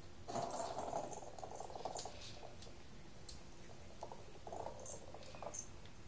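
Small hollow 3D-printed plastic treat ball being nudged by a cat across a hard floor: a second of soft rolling and clicking near the start, then a few scattered light clicks and rustles later.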